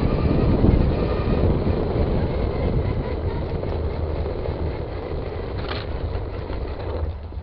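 Traxxas Stampede 2WD RC car driving, its electric motor and tyres making a heavy rumbling noise with wind on the onboard microphone; the sound eases off gradually and drops away sharply near the end as the car slows.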